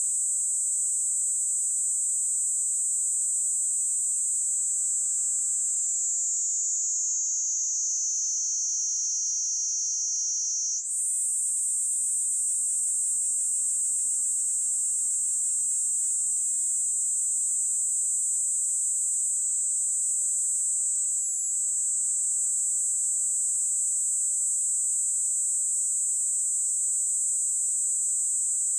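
Kaempfer cicada (Platypleura kaempferi) singing a continuous high, shrill buzz. From about six seconds in its pitch slides lower, then it jumps back up abruptly just before eleven seconds: the pitch shift of its modulated song.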